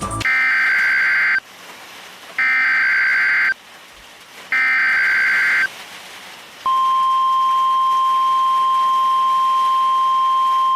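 Emergency Alert System signal: three screeching bursts of digital header data, each about a second long and a second apart, then, about two thirds of the way in, the steady single-pitch NOAA Weather Radio warning alarm tone begins and holds, marking the start of a warning broadcast.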